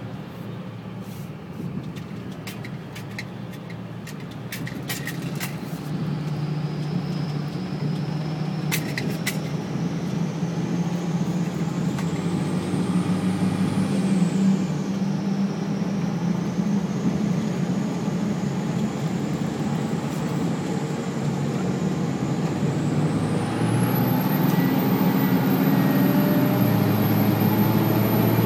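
2004 Dodge Ram's 5.9 Cummins inline-six turbo diesel pulling under load, its turbocharger whistling loudly with the silencer ring removed and an open cold air intake. The whistle climbs in pitch, drops about halfway through, then climbs again and jumps sharply higher near the end. Keys jingle in the first several seconds, heard from inside the cab.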